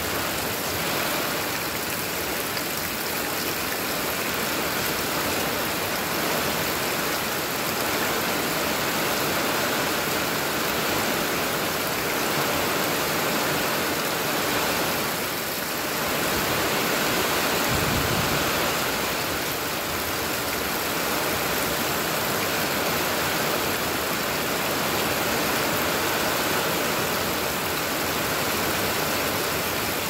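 Heavy rain pouring steadily onto dense leafy vegetation, a continuous even hiss. A brief low thud a little past halfway.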